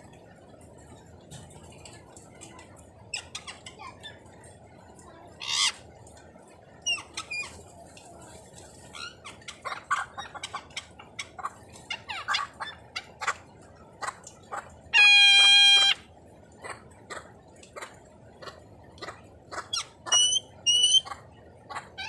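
Blue-naped and racket-tailed parrots calling: scattered short clicks and chirps, a sharp squawk about six seconds in, one loud held call about a second long midway, and two quick rising chirps near the end.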